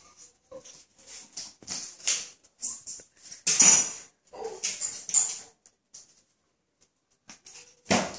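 A cat chasing and pouncing at a feather bird toy swung on a wire across a vinyl floor: irregular rustles, scuffs and scrabbles. The loudest come about three and a half seconds in and again near the end.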